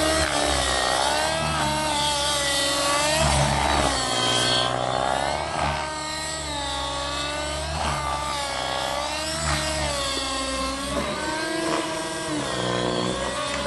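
Miniature Aircraft Fury 55 RC helicopter's OS 50 glow engine with Hatori muffler running hard in aerobatic flight. Its pitch swoops down and back up again and again.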